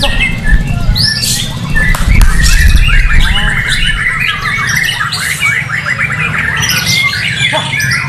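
White-rumped shama (murai batu) singing a fast, unbroken run of varied chirps and whistled notes, with other songbirds overlapping it. A low rumble runs underneath, heaviest about two seconds in.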